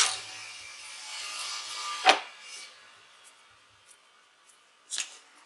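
Handling sounds of stripping and twisting a thin stranded wire by hand: a sharp click at the start, a couple of seconds of rubbing as the copper strands are worked between the fingers, a louder click about two seconds in, then a quieter stretch with one more light click near the end.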